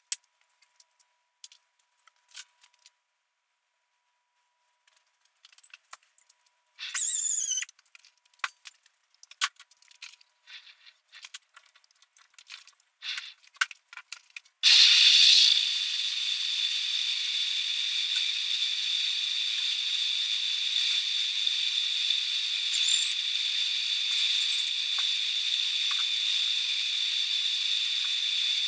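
Metal lathe machining a part in a four-jaw chuck with a boring bar. First come scattered clicks and a short squeal. About halfway through, the cut starts suddenly with a steady, high-pitched squeal that runs on.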